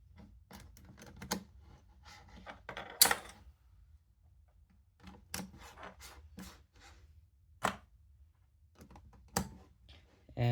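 Plastic pieces of a Moyu Weilong Ferrocore speedcube clicking and knocking together as a layer is fitted back onto the cube, in irregular clicks with sharper snaps about three seconds in and near the end.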